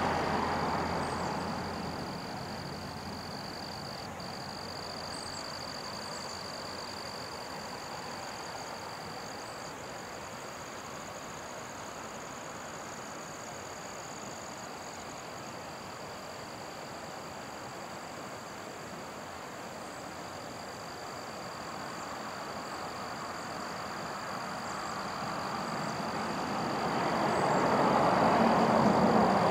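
Road traffic passing: one vehicle fading away at the start and another swelling up to a peak near the end, over a steady high-pitched insect drone.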